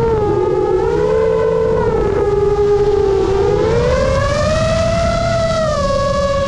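Seven-inch FPV quadcopter's XING2 2809 1250KV motors and 7.5-inch three-blade props whining, the pitch sliding smoothly with the throttle: dipping in the first half, rising about four seconds in, then holding steady. A rushing wind noise runs underneath.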